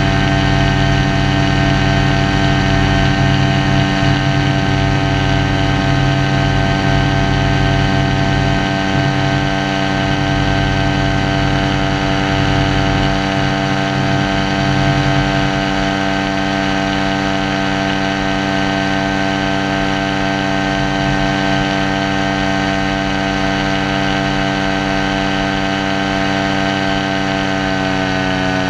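Paramotor engine and propeller running at a steady throttle in flight, an even droning hum, with wind rumbling on the microphone. Right at the end the pitch drops slightly as the throttle eases.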